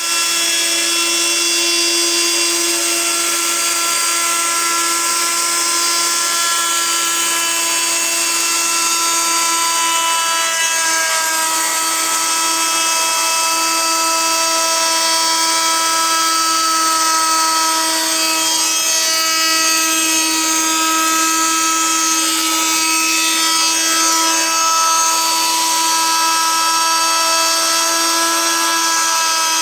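An electric power tool working wood, its motor whining at a steady, unchanging pitch over a hiss of abrasion.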